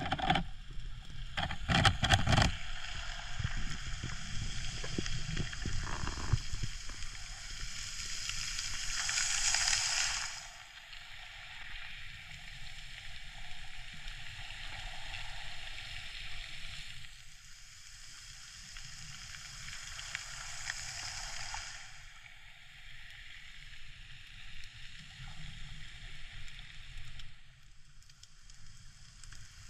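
Underwater ambience picked up by a camera in its housing: a steady hiss and faint crackle of the sea, with a few knocks in the first couple of seconds and the hiss swelling and easing as the diver moves.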